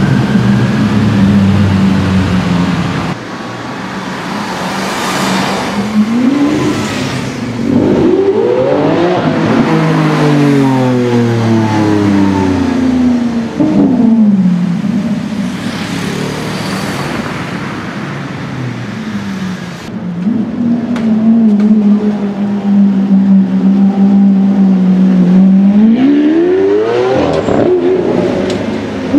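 Lamborghini Aventador's V12 engine, running steadily at low revs, then revving hard several times with the pitch climbing and dropping, as when it pulls away and shifts up. Near the end it climbs steeply once more.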